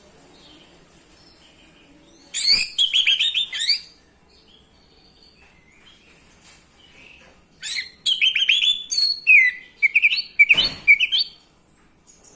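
Orange-headed thrush (anis merah) singing in the clear, open 'ngeplong' style. There are two phrases of quick, high, varied notes, a short one early and a longer one in the second half. A dull knock comes near the end.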